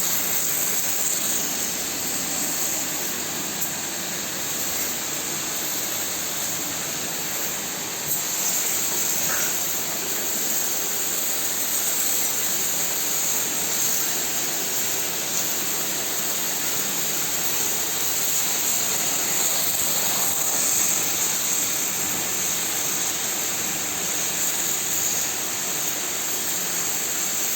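Steady hiss of a high-pressure water jet from an electric three-piston-pump washer's spray gun, blasting dung off a cow.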